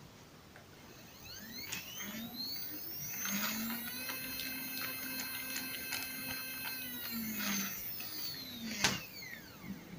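NEMA 17 stepper motor driving a 3D-printed cycloidal gearbox: its whine rises in pitch as it speeds up, holds a steady pitch for about four seconds, then falls as it slows. A sharp click comes near the end.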